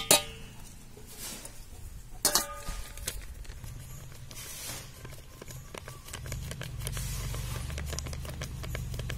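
Stainless-steel cup clinking against a steel mixing bowl, once at the start and again about two seconds in, each with a short metallic ring, followed by faint soft rustling of flour being poured from a packet into the steel cup. A low steady rumble joins about six seconds in.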